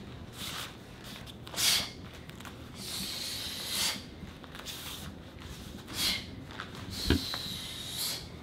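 Taekwondo student running through a form: a few short, sharp swishes as strikes are thrown, a longer hiss midway, and a dull thump of a foot landing on the foam mat about seven seconds in.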